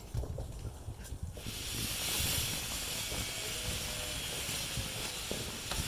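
A lit firework spraying sparks: a steady hiss that starts suddenly about a second and a half in and keeps going.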